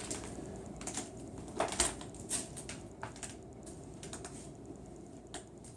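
Scattered light clicks and rustles of Velcro strips being handled and pressed together, the loudest cluster a little under two seconds in.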